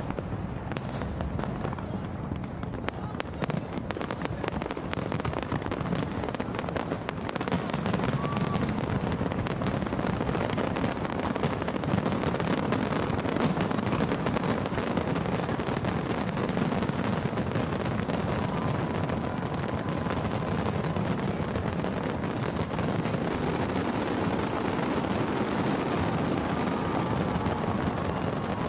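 Large aerial fireworks display: a dense, continuous barrage of bangs and crackles, getting louder about eight seconds in.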